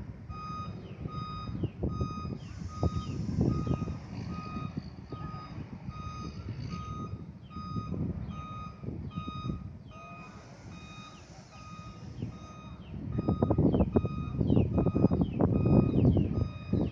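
Vehicle reversing alarm beeping steadily, about one beep every half second or so, over a low engine-like rumble that grows louder near the end.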